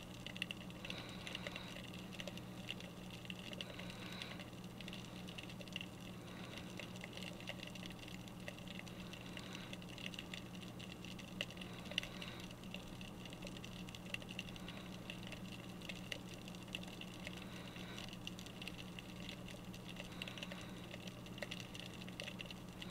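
Faint underwater sound picked up by a submerged GoPro: a steady low hum with scattered small clicks and crackles.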